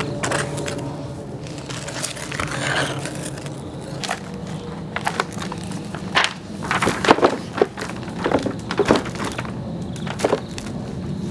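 A large rough stone is rocked and pressed over foil-wrapped drypoint plates on cardboard as a makeshift printing press. The foil crinkles and crackles, and there are scraping knocks in irregular clusters that are densest in the middle of the stretch.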